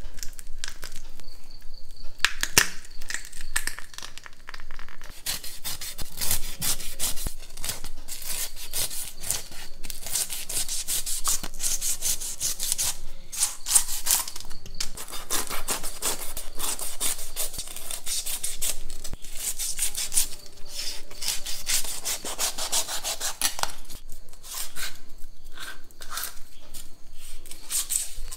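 A kitchen knife scraping the scales off a snakehead fish: a fast run of rasping strokes, thinner at first and near the end.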